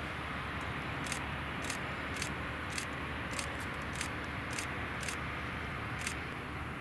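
Bombardier CS300's Pratt & Whitney PW1500G geared turbofans running at taxi power as the airliner lines up for takeoff: a steady hiss over a low rumble. A light, sharp tick sounds about every half second.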